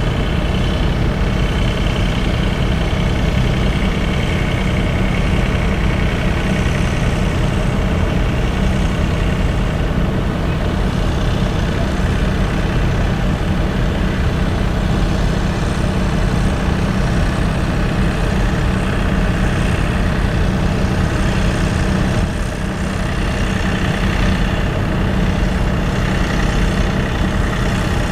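Diesel tractor engine running steadily at a low, even speed, close by.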